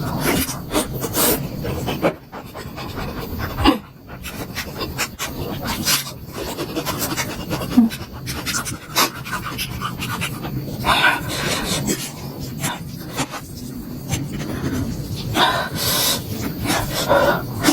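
Close-up eating sounds of someone eating momos (steamed dumplings): chewing and wet mouth sounds, with irregular sharp smacks and clicks.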